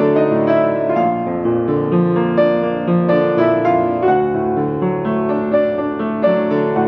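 Piano music: notes struck at an even, gentle pace over sustained chords.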